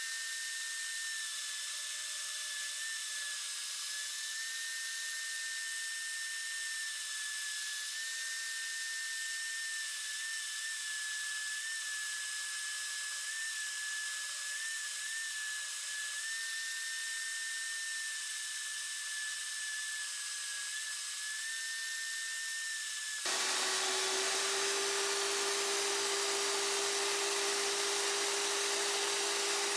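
Benchtop drill press running with a steady high whine while drilling pin holes through knife handle scales, the pitch dipping briefly now and then as the bit bites. About three-quarters of the way through, the sound switches abruptly to a lower, slightly louder steady hum.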